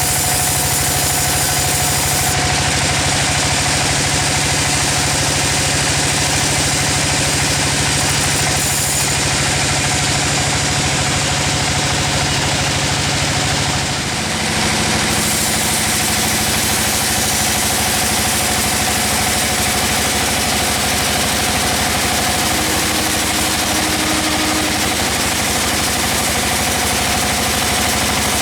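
Sawmill machine engine running steadily, with a brief dip and a shift in its pitch about halfway through.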